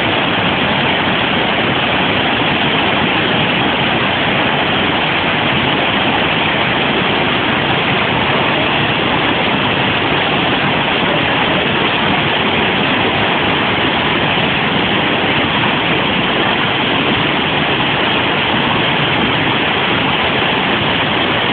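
River water rushing over a low rock ledge in a rapid: a loud, steady, unbroken rush of white water.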